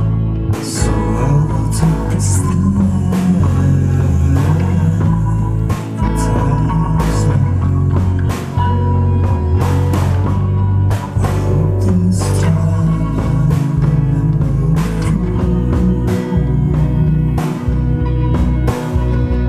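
Lo-fi rock song: guitar over a heavy bass line and a steady drum beat.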